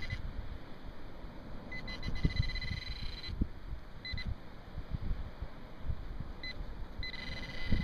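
A handheld metal-detector pinpointer beeping at one steady high pitch as it is worked through dug beach sand. It gives short beeps, a quick run of beeps about two seconds in, and more beeping near the end: the alert that it is close to a metal target in the sand. Wind rumbles on the microphone.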